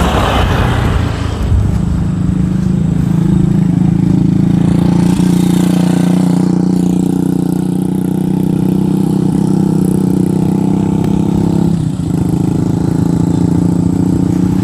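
An engine running close by at a steady pitch, with a brief dip about twelve seconds in.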